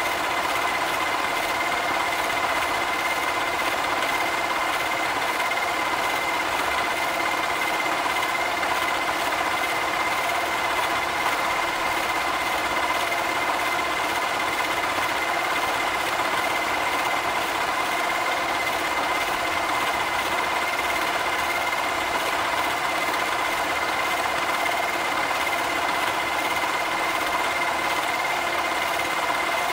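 Milling cutter cutting a slot in a steel block, likely the T-slot: steady machining noise with a constant high whine from the spindle and cutter.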